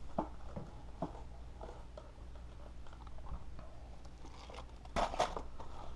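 Cotton swabs rubbing on an amplifier circuit board wet with contact cleaner: faint scattered scratches and clicks, with a louder, brief scratchy rustle about five seconds in.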